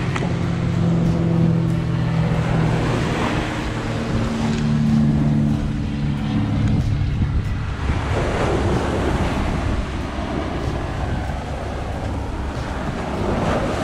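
Sea waves breaking and washing up the shore, swelling twice, with wind buffeting the microphone. Low held music notes sound under the first half and fade out about halfway through.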